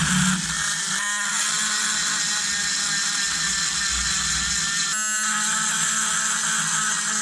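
Electric power tool running steadily, of the kind used to strip rust from a hammer head; its sound shifts abruptly about a second in and again around five seconds.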